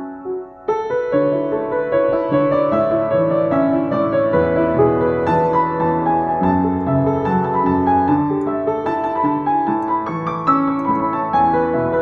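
Freshly tuned Yamaha JX113T 113 cm upright piano being played: flowing passages of chords and melody over a bass line. There is a short lull in the first second before a new phrase comes in.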